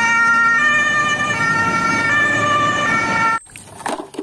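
German fire engine's two-tone siren, switching between a high and a low note about every three quarters of a second. It cuts off suddenly about three and a half seconds in.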